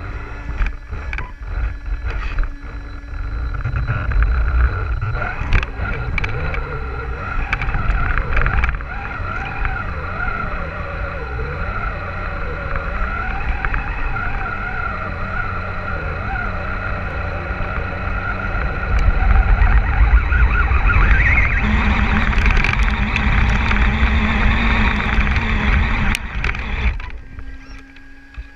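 Axial Wraith RC rock crawler's electric motor and gears whining steadily, heard close up from on board, with knocks and scrabbling as it climbs over loose dirt and stones. It grows louder about two-thirds of the way in as it works up the steep slope, then falls away sharply near the end.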